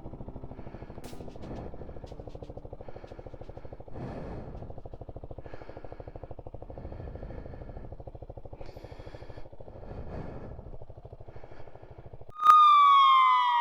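Honda CRF300L single-cylinder four-stroke motorcycle engine running with a fast, even pulse, swelling a little twice. Near the end a sudden, much louder wail slides downward in pitch.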